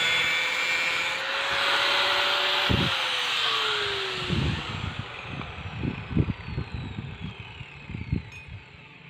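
Angle grinder with a thin cut-off disc cutting through stair nosing trim, its motor whine steady, then winding down with a falling pitch after about three seconds once the cut is done. Several short knocks and taps follow as the cut trim pieces are handled.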